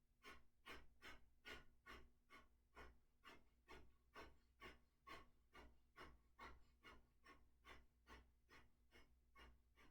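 Faint, rapid, forceful exhalations through the nose in Kapalbhati pranayama breathing, a little over two short puffs a second in an even rhythm, each followed by a passive inhalation.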